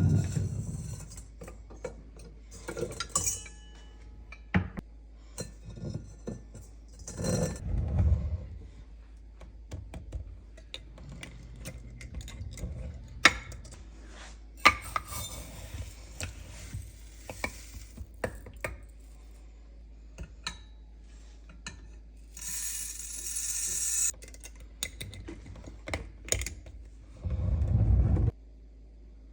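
Kitchen handling sounds of dishes and utensils: irregular clinks, taps and knocks, with a short hissing spell about three quarters of the way through and a dull low thud near the end.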